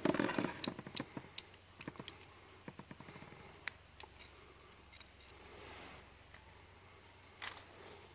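Small plastic clicks and taps of Beyblade parts being handled, probably the top with the broken chip. There is a quick run of clicks at first, then scattered single clicks, and a sharper click near the end.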